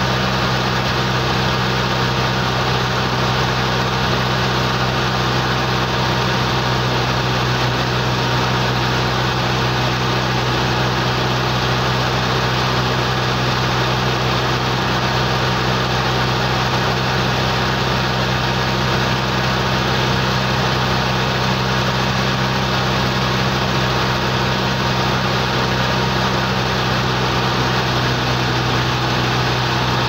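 A boat's engine running steadily at an unchanging low pitch.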